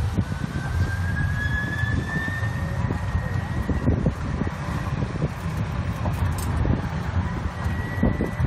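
Electric open-sided shuttle tram's motor whining, the pitch rising slowly as it picks up speed and then holding steady, over a low rumble of wind and road noise.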